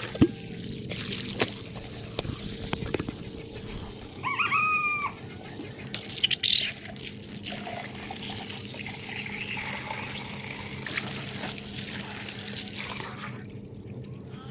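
Garden hose running water into a water container as it refills, with a few knocks near the start. About four seconds in, a short poultry call is heard.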